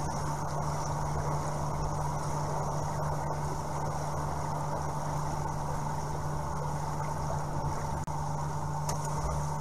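Steady mechanical hum heard underwater in a swimming pool, with a low tone and a fainter higher tone, most likely the pool's circulation pump carried through the water. A small click about eight seconds in.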